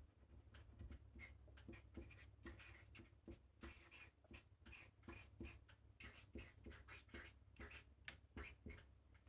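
Faint scratching and tapping of a paint marker's tip on paper, in short irregular strokes several times a second, over a low steady hum.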